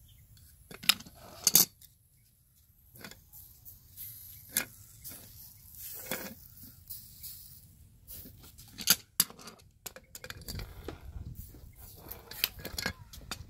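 Copper pipe and steel pliers clinking and knocking on brick pavers as the freshly soldered fitting is handled: a scattering of sharp metallic clanks, the loudest about a second in and again near the middle.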